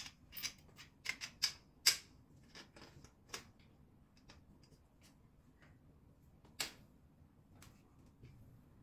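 Sharp metal clicks and taps as the square steel tubes and bolts of a white metal mesh rack are handled and fitted together by hand: a quick cluster of clicks in the first two seconds, then scattered single ones.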